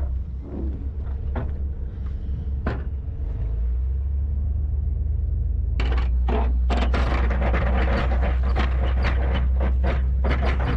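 The boat's engines running with a steady low drone as they work the boat sideways to free an anchor fouled on the harbour bottom. A few light knocks come in the first seconds, and about halfway through a dense crackling rush joins in and everything gets louder.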